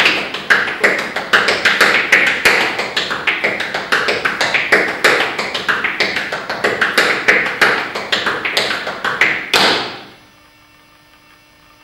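Tap shoes on a hard floor dancing the basic busking time step (tap step, shuffle, ball, ball change, repeated): a continuous rhythm of sharp metal taps, about five a second. The taps stop abruptly about ten seconds in, leaving a faint hum.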